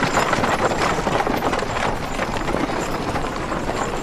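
Horses' hooves clip-clopping on a town street amid a steady bustle of passing traffic, a run of many irregular hoof knocks.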